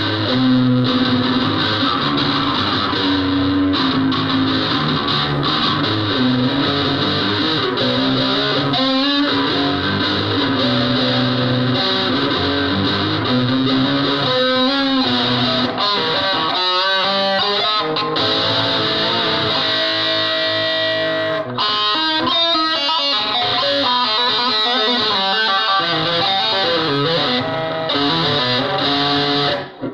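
Stratocaster-style electric guitar played through distortion: a continuous stream of loud, sustained notes, with wavering, bending pitches in the middle.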